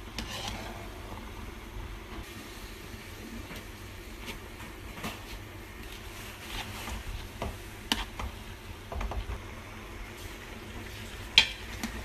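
Prawns in coconut-milk gravy simmering in a pot while a metal ladle stirs in fern shoots, with occasional sharp clinks of the ladle against the pot; the loudest clink comes near the end.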